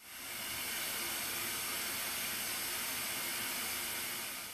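Sound effect of TV static: a steady hiss that fades in over about half a second and fades out near the end.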